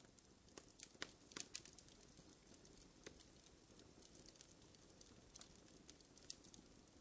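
Near silence with faint, scattered clicks and crackles.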